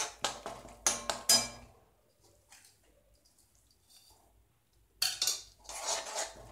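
Metal spoon scraping and clinking against a metal kadai while stirring thick tamarind paste. There are a few strokes at the start, a pause of about three seconds, then stirring again near the end.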